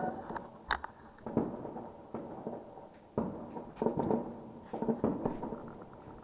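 New Year's fireworks and firecrackers going off irregularly, a dozen or so sharp bangs of differing loudness, each trailing off in a short echo.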